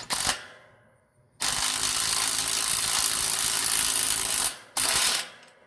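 Power tool fastening the coop panels together: two brief bursts, then a steady run of about three seconds, then another short burst.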